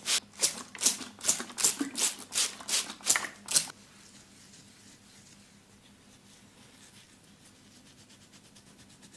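Massage strokes: hands rubbing firmly and rhythmically, about two and a half strokes a second. The strokes stop suddenly about four seconds in, and only faint rubbing follows.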